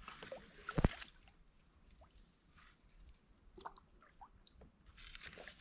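Faint drips and small knocks from a kayak drifting on still swamp water, with one sharper knock about a second in and a few short, faint squeaks later on.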